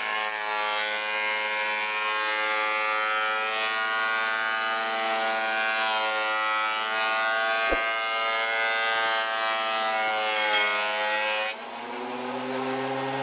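Fujiyama PP9012 12-inch bench planer (thicknesser), its 1650-watt brushed motor and cutter head running with a loud, high whine while planing a board, the pitch wavering slightly under load. Near the end it gets quieter and its pitch climbs slowly.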